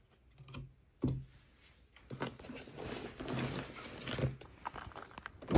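Rustling with small clicks and knocks, as of things being handled at close range: a sharp click about a second in, a few seconds of rustling, and a louder knock at the end.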